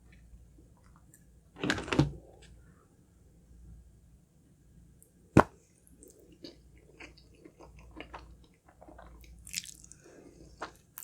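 Close-miked wet chewing and mouth smacking while eating Filipino spaghetti, with a longer noisy burst about two seconds in and a sharp click about five seconds in, then a run of small wet clicks.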